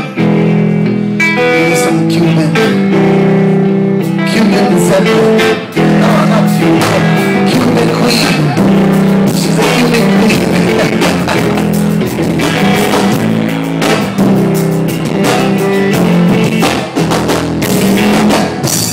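Live rock band playing the song's instrumental intro: electric guitars over held low notes, with a short break about five and a half seconds in before the band plays on fuller. Loud and heard up close to a PA speaker.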